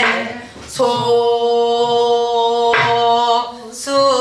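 Woman singing long held notes in a pansori-style vocal exercise. Her voice breaks off briefly twice.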